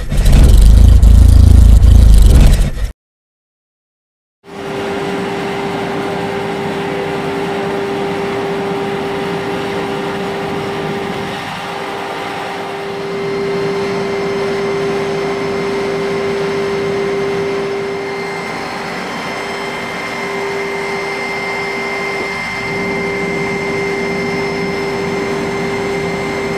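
Giugni Miniflex 544 flexographic printing machine running: a steady mechanical hum with a constant mid-pitched tone and a fainter high one. Before it, a short loud opening sound for about three seconds, then a moment of silence.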